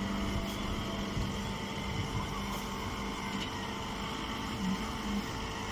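Straw baling machine running with a steady mechanical hum.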